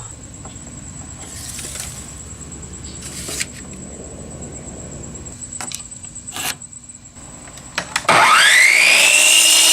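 Electric power saw switched on about eight seconds in: its motor whine rises quickly in pitch and then holds steady at full speed, ready to cut a 2x4. Before that, only a few faint clicks and knocks of handling.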